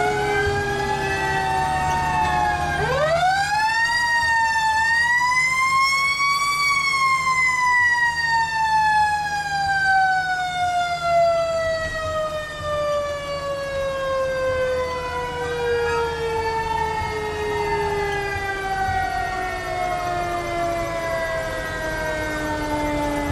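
Several fire truck sirens sounding together: one winds up steeply about three seconds in, peaks a few seconds later and then slowly winds down through the rest, while another rises and falls near the middle. A low engine drone runs underneath.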